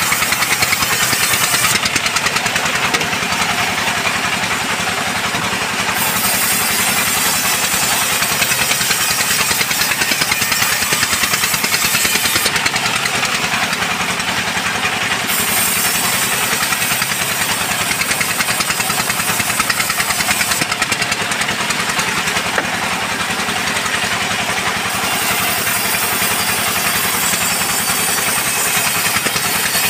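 Log band sawmill running steadily while its blade saws a mahogany log in repeated passes. The high hiss of the cut rises for about five to six seconds at a time, three times, with short gaps between passes while the log is set back.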